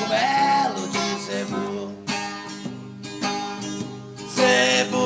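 Music: a song with strummed acoustic guitar and a sung voice.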